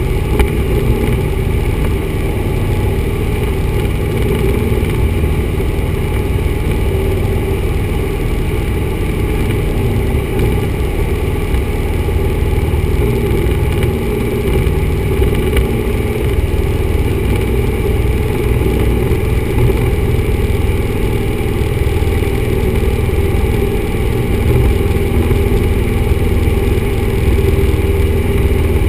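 A 1974 Cessna 172's four-cylinder Lycoming engine and propeller running steadily in flight, heard as a constant drone inside the cabin.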